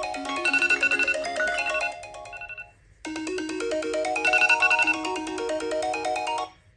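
Smartphone alarm tone: a quick, busy melodic chime phrase of many notes that breaks off briefly midway, plays again, then cuts off suddenly near the end.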